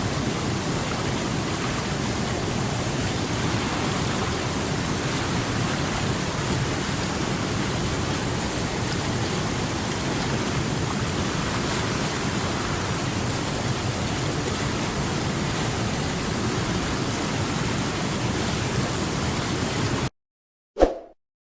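Water rushing steadily over rocks, a continuous flow that cuts off suddenly near the end. A single short ringing tone follows, the loudest sound here.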